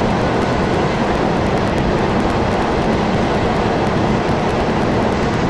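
A machine engine running steadily, a constant loud rumble with an even hum.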